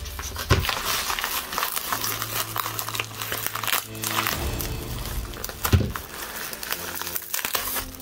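Plastic bubble wrap crinkling and crackling as it is handled and pulled off a wrapped book, with two sharper, louder crackles, the louder about two-thirds of the way through.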